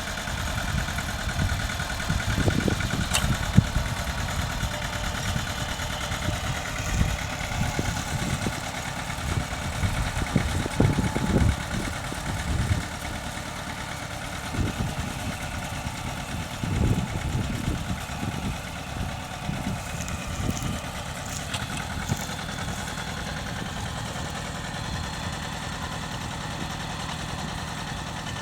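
Mitsubishi tractor engine running steadily while ploughing, with uneven low rumbles coming and going over it for most of the first two-thirds.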